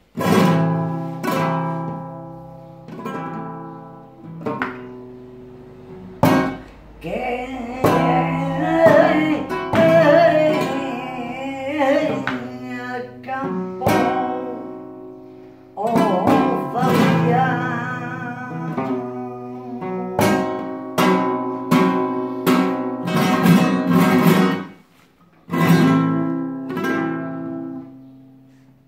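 Nylon-string flamenco guitar playing sharply struck chords that ring out and fade, with a woman singing over it through the middle of the stretch. The guitar breaks off briefly near the end, then strikes again.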